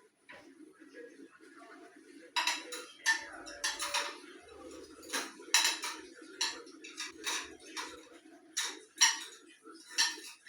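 Irregular sharp clinks and clatters of hard objects knocking together, about fifteen strikes beginning about two seconds in, over a steady low hum.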